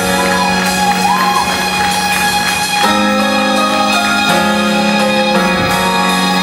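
Live band playing amplified music with no vocals yet: sustained chords under a short melodic figure, changing about three seconds in and again a second and a half later.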